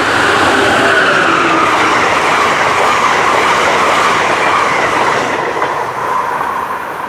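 Train passing close by, wheels running over the rails with a clatter. It is loudest early on, holds, then fades. A high ringing tone drifts slightly lower in pitch throughout.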